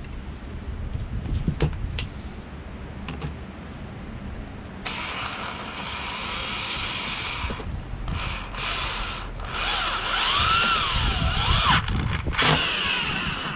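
Electric drill driving screws through a metal bracket into a wooden board. A few sharp clicks come first, then about five seconds in the motor starts whirring, stops and starts again in short spurts, and its pitch rises and falls near the end as it speeds up and slows.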